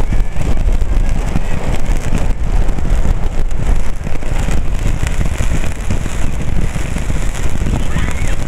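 Close-range ground fireworks: a dense, continuous crackle and hiss of sparks from fountains and rising comets, with a steady low rumble under it.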